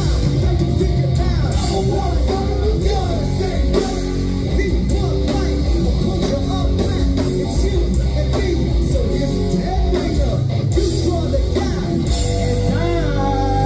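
Rock band playing live at full volume: electric guitars, bass, drums and a singing voice. About twelve seconds in, the drums stop and a chord is left ringing, with a note sliding down near the end.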